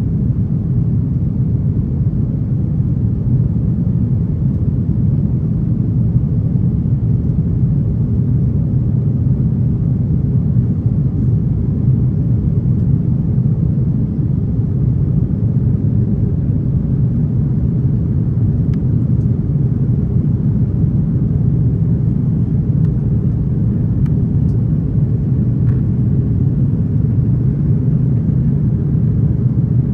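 Steady low rumble of engines and airflow inside an Airbus A330's passenger cabin, climbing shortly after takeoff.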